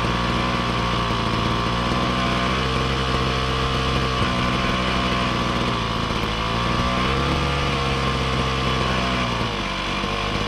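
Small engine of a Koshin EP-10P engine-powered sprayer running unsteadily. Its speed sags and picks up again a few times as the choke and throttle are being set, the sign of an engine that is hard to keep running after a restart.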